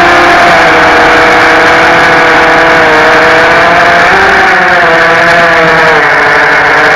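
DYS Samguk 2300KV brushless motors and propellers of an FPV racing drone, whining loudly as heard from on board. The pitch rises a little about four seconds in and drops again near the end as the throttle changes.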